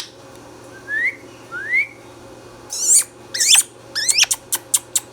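Indian ringneck parakeet giving two short rising whistles, then a few loud, harsh, high-pitched calls and a quick run of sharp chirps near the end.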